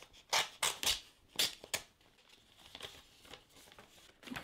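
Paper envelope being torn open and handled: about five short, sharp rips in the first two seconds, then softer paper rustling.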